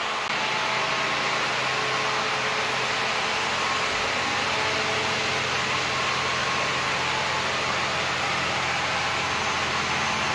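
Floor air mover (blower fan) running steadily: an even rush of air with a faint steady hum underneath, blowing across a freshly finished wood floor to dry it.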